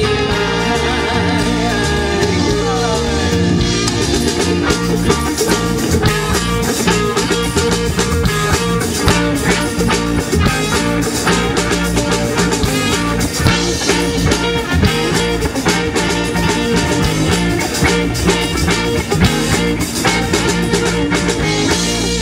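A band playing a rock song with guitar, bass and a steady drum beat, with some singing.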